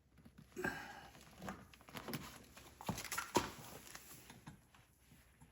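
Hand tools working on a tractor's differential lock pedal: irregular light clicks, knocks and rustling as an Allen wrench and a wrench are handled at the set screws and locking nuts, with the sharpest knocks about three seconds in.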